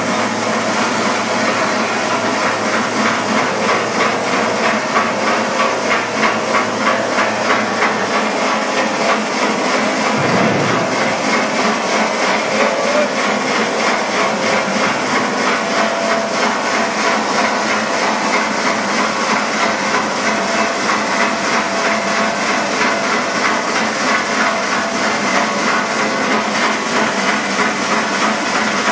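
Micro-spray cooling rig hissing steadily as it sprays onto a large steel cylinder that is giving off steam, with a fast, even pulsing running through the hiss. One low thump about ten seconds in.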